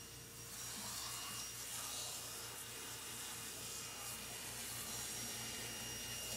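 Steady hiss of a shower sprayer running water onto a Samoyed's thick, water-resistant coat during a bath.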